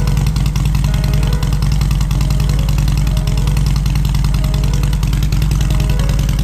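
Harley-Davidson Softail Deluxe's V-twin engine running steadily, with a fast even firing pulse and no revving.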